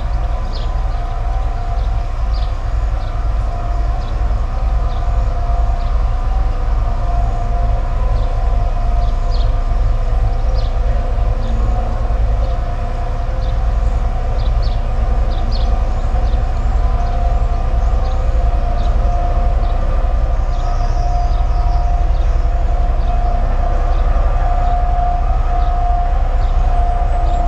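Steady industrial drone from nearby petrochemical plant machinery: a deep rumble under several held tones that never let up, the relentless noise of petrochemical development reaching a garden.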